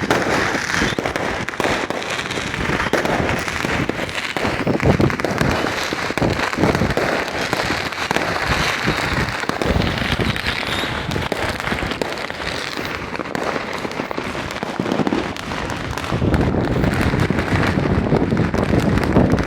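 Fireworks going off in a dense, irregular barrage of bangs and crackles.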